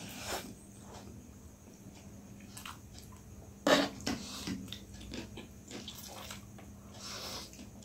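Instant noodles being slurped and chewed in close-up, with several wet slurps; the loudest comes about halfway through.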